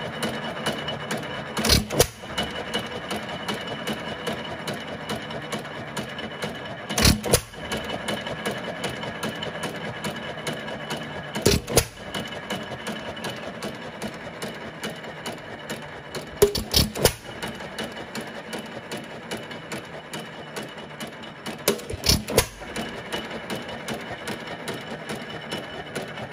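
1923 Fairbanks Morse 3 hp Z hit-and-miss engine running with no load. About every five seconds comes a loud firing stroke, five in all. Between them is a steady light clatter of the valve gear and governor as the flywheels coast through the misses.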